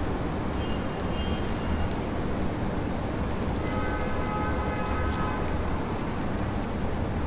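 Steady rain over a low city rumble of traffic. A faint, steady pitched tone sounds for about a second and a half midway, with a fainter high tone about a second in.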